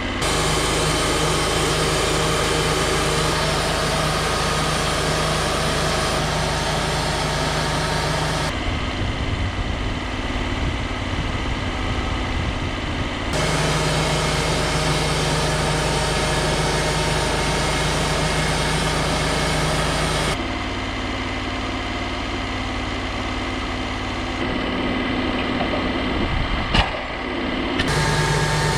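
Portable sawmill's engine running steadily while milling lumber. Its tone changes abruptly several times, with one sharp click near the end.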